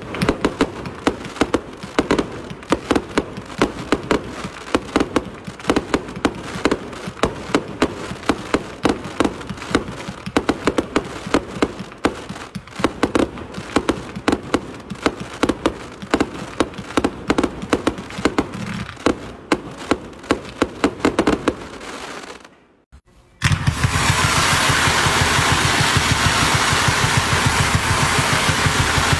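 Fireworks cakes firing: a quick string of launch thumps and aerial shell bursts for about 22 seconds, then a short break. A second cake follows with a dense, continuous rattle of very rapid shots as it fans out comets.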